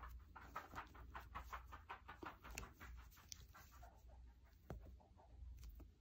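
Faint, quick scratchy rustling and light clicks of a crochet hook drawing yarn through stitches, about four or five a second, thinning out near the end.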